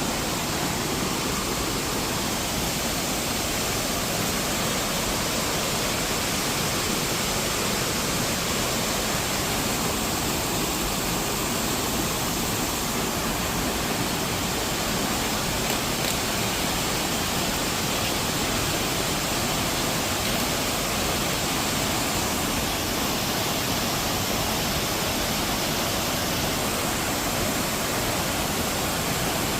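Waterfall: a steady rush of falling water, spread evenly from low to high pitch and unchanging throughout.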